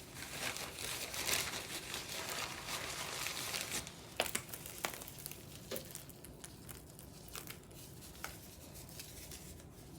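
Crinkling and rustling as crushed peppermint candy is sprinkled over chocolate-drizzled popcorn, densest for the first four seconds, then thinning to a few scattered ticks and taps.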